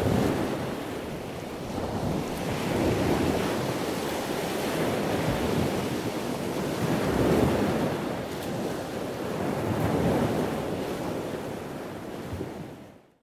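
Sea waves washing onto a shore, the surf swelling and receding every three to four seconds, fading out at the very end.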